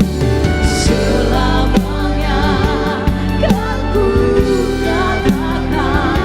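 Live worship music: a band with steady bass and drum hits under singing voices that waver in pitch.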